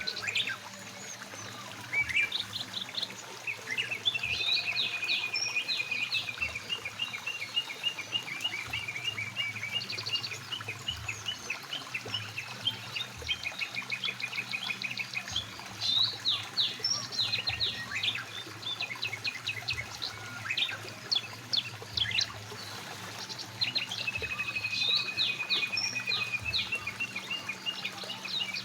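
Several songbirds chirping and trilling almost without pause, some in fast repeated notes, over the steady rush of a flowing mountain stream.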